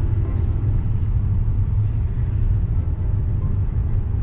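A car's engine and tyre noise heard from inside the cabin while it drives slowly: a steady low rumble.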